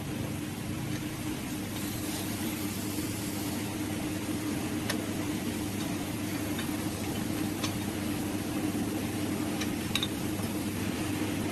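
Steady mechanical hum of a running machine, with a few faint, sharp metallic clicks.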